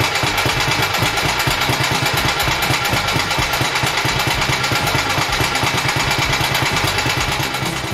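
Moto Guzzi motorcycle engine running steadily at idle, a fast even beat of firing pulses.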